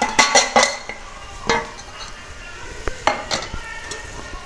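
A metal spoon clinking and scraping against a steel plate and the aluminium pressure cooker as spice powder is knocked into the pot: several quick clinks in the first second, then a few more around a second and a half in and about three seconds in. Beneath them the masala base sizzles faintly in the cooker.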